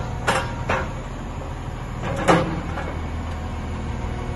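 Kalmar DRF450 reach stacker's Cummins QSM11 diesel engine running steadily, with three sharp knocks, the loudest a little over two seconds in.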